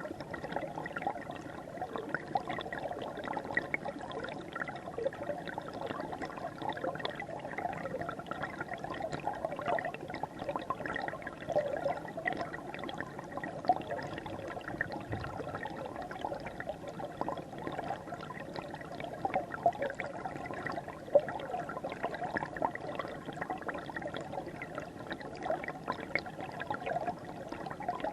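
River water flowing over stones: a steady rush of water dotted with many small gurgles and splashes.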